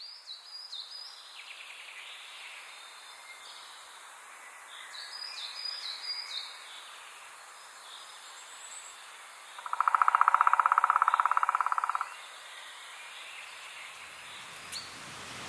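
Forest ambience: a steady soft hiss with birds chirping in short high calls, near the start and again about five seconds in. About ten seconds in, a loud rapid rattle of pulses lasts about two seconds and stops abruptly.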